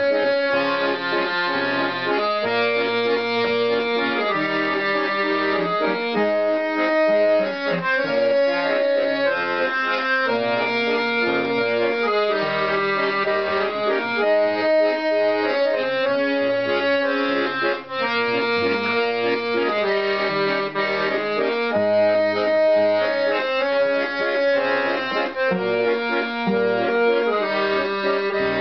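Piano accordion and acoustic guitar playing an instrumental passage of a slow song, the accordion's held chords leading and changing every second or so over the strummed guitar.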